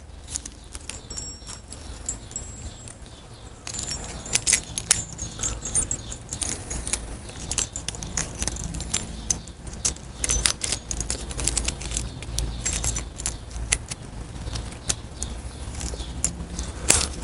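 Small metal parts clinking and rattling as loose cam shims are rummaged through in a plastic parts tray; the clinking starts about four seconds in and goes on in quick, irregular clicks over a steady low hum.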